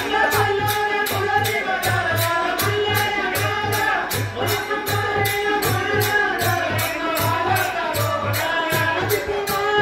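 Live Badaga folk dance music: a steady, even drum beat with a regular jingling rattle on the beat, under a gliding melody line.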